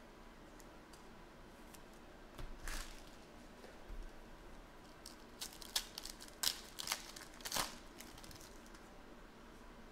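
A trading-card pack's foil-plastic wrapper being torn open and crinkled by hand: a few scattered crackles after about two and a half seconds, then a busier run of sharp crinkles and tears in the second half.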